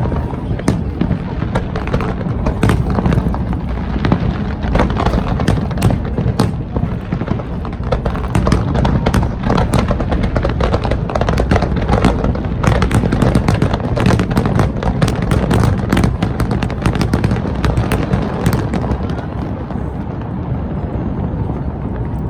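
Fireworks going off in rapid, continuous succession: many sharp bangs and crackles overlapping, thinning out near the end.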